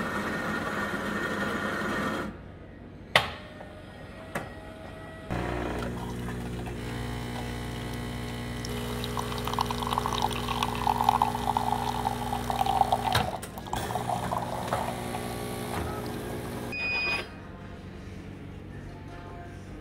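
Donggu bean-to-cup automatic coffee machine brewing: a whirring grind for about two seconds, a couple of clicks, then its pump humming steadily while coffee streams and splashes into a ceramic mug, cutting off abruptly about twelve seconds later.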